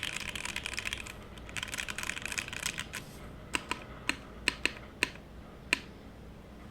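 Mechanical keyboard being typed on: a Matrix 1.2og with lubed and filmed FFF switches on a top-mounted aluminium plate with no foam, under GMK keycaps. Two quick runs of rapid keystrokes come first, then about seven separate, louder single presses of the modifier keys in the second half.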